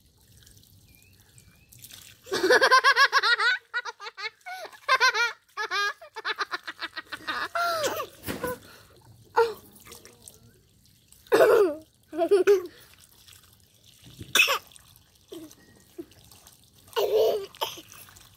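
A toddler babbling and laughing in short high-pitched bursts, with water trickling from a garden hose between them.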